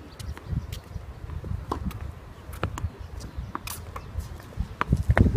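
Scattered light clicks and scuffs on a tennis court at irregular intervals, footsteps and ball contacts during play, over a low rumble; one sharper hit comes about three and a half seconds in.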